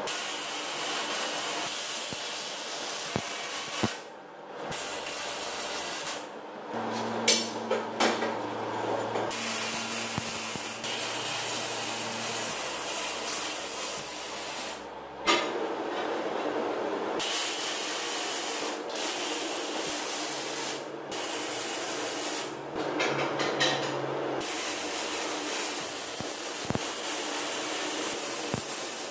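MIG welding on steel tubing: the arc crackles and hisses in runs of several seconds, stopping briefly between welds.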